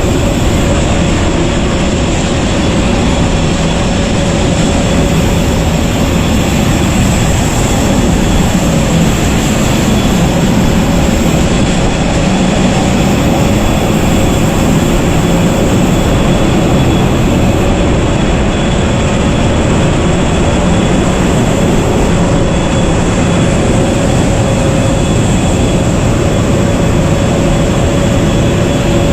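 Steady, loud cabin noise inside an Airbus A380: an even rush of engine and airflow drone with a few faint steady whining tones running through it.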